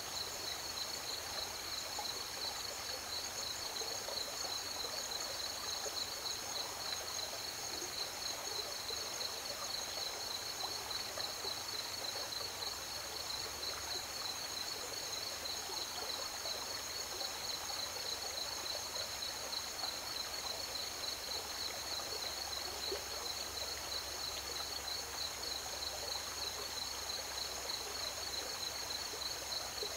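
Steady, high-pitched chorus of crickets trilling over the even rush of flowing river water.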